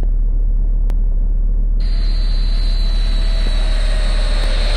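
Jet airliner engines: a steady low rumble, joined about two seconds in by a steady high whine.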